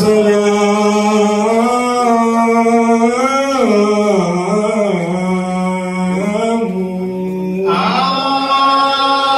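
A man chanting mawlid praise poetry in long held notes that bend and waver in pitch, amplified through a microphone, moving into a new phrase near the end.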